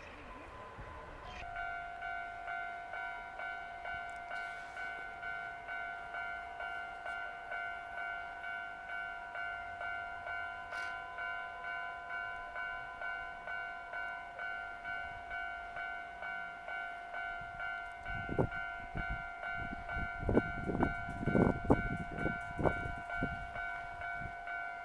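Railway level-crossing alarm starts about a second and a half in and rings steadily at about two strokes a second. In the last several seconds a train passes, its wheels thumping over the rail joints in quick clusters under the alarm.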